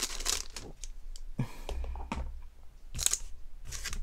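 Foil wrapper of a Pokémon card pack crinkling and crackling as it is handled, in short, uneven rustles.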